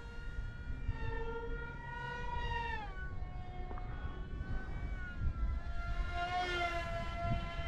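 The electric motor of a 3D-printed RC F-35 model plane whining in flight. Its pitch falls about three seconds in and rises again after about four seconds as the throttle changes. Wind rumbles on the microphone underneath.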